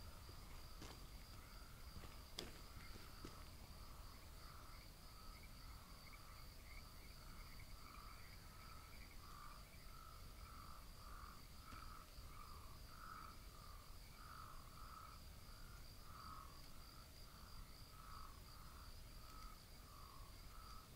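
Faint night chorus: crickets trilling steadily on a high note, with a lower pulsing call repeating about twice a second. A few soft clicks in the first seconds.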